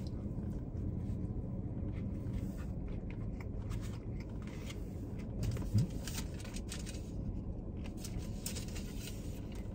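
Steady low hum inside a car cabin, with faint clicks and rustles of eating from a paperboard food tray. A short rising "mm" comes about six seconds in.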